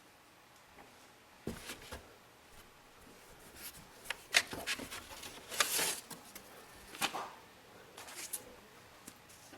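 Packaging and parts being handled: irregular rustles and scrapes with a few sharp clicks.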